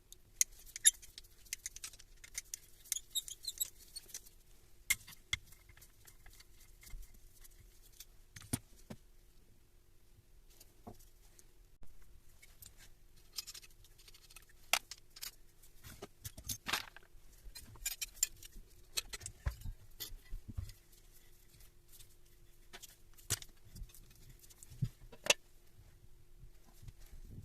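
Small metal parts and hand tools clinking, rattling and knocking at irregular intervals, with a faint steady hum underneath.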